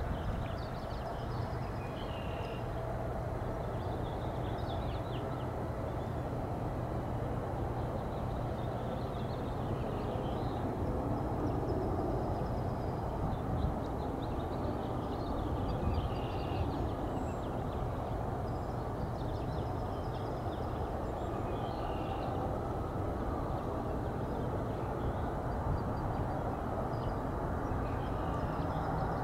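Distant, steady rumble of a Boeing 727's three Pratt & Whitney JT8D turbofans on final approach, swelling a little as it nears. Birds chirp now and then over it.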